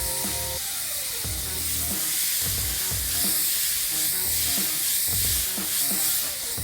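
Steady hiss of a water spray washing down an HVAC unit, under background music with a repeating deep bass beat.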